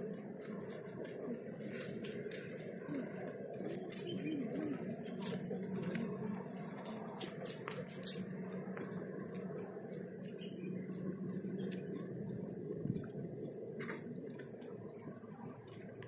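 Walking sounds from a hand-held camera: many short, irregular clicks of footsteps and handling over a steady low hum, likely distant road traffic.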